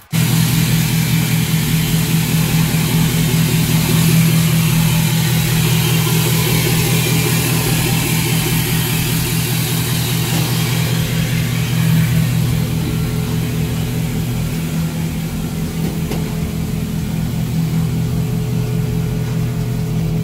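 An engine running steadily. It cuts in abruptly at the start and holds an even pitch, loud throughout.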